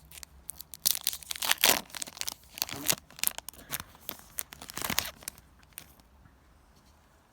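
Foil booster pack wrapper being torn open and crinkled, a run of irregular rips and crackles that dies away about six seconds in.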